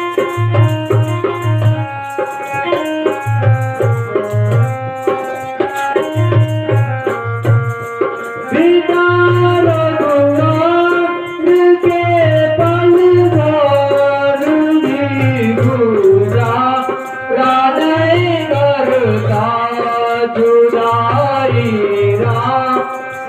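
A song with an instrumental melody over a repeating low drum beat; a solo voice comes in singing about eight seconds in, with long, bending held notes.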